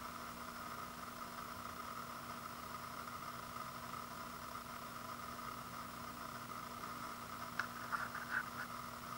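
Quiet room tone with a steady faint hum and hiss, and a few small clicks near the end.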